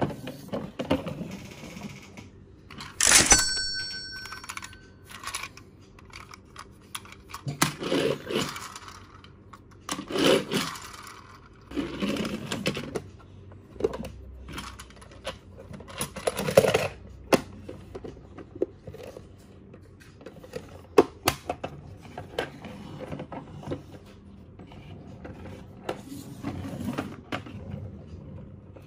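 Large plastic toy train handled on a wooden tabletop: scattered clicks and knocks of plastic parts, with several short scraping or rolling bursts. About three seconds in, a sharp hit followed by a short ringing tone.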